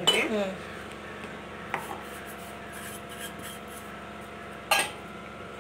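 Kitchen bowl and utensils being handled while mixing: a faint rubbing, a small click about two seconds in, and one sharp knock near the end.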